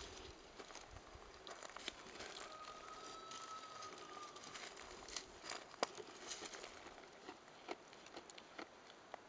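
Kiko buck goat browsing poison oak: foliage rustling and snapping in scattered sharp crackles, the sharpest a little past the middle. A thin steady tone sounds for about two seconds before that.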